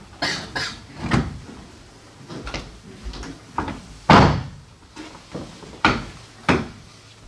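Footsteps in hard shoes on a wooden stage, and a small wooden stool put down on the boards with a loud knock about four seconds in, followed by knocks of feet stepping up onto the stool.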